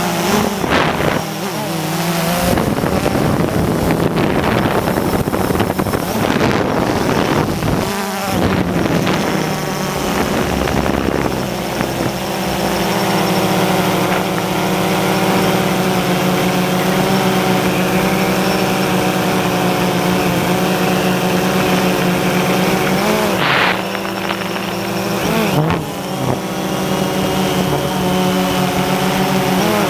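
Drone's propellers buzzing steadily, the pitch wavering and dipping briefly as it manoeuvres. Gusts of wind noise on the microphone come and go in the first dozen seconds.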